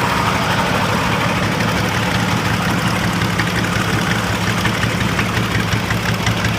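Boat engine running steadily at idle, a constant low hum with a faint regular ticking over it from about halfway through.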